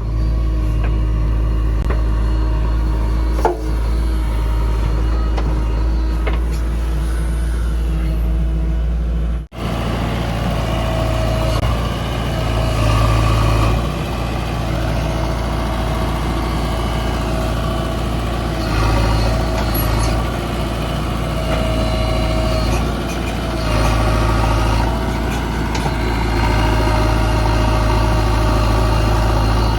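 JCB 3DX backhoe loader's diesel engine running under working load, swelling and easing several times. A mid-pitched whine comes and goes with it, and the sound breaks off sharply for an instant about nine seconds in.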